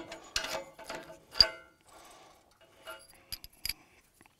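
Metal clinks and knocks of tractor three-point linkage pins and lower arms being wobbled loose in the plough's hitch brackets. There is one sharp ringing clink about a second and a half in, and a few lighter clicks near the end.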